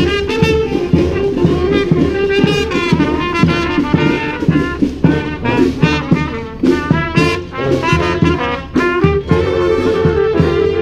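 Community brass street band playing a cumbia tune: trumpets, trombones and saxophones over a steady drum beat.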